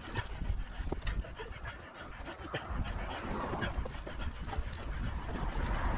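Rapid panting breaths over the low rumble and clicking rattle of a mountain bike rolling along a dirt trail.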